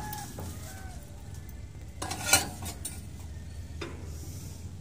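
Hand-cranked steel plate-rolling machine being worked by its lever and chain drive as it rolls a steel plate: scattered metal knocks and clatter, with one sharp clank about halfway through, over a low steady hum.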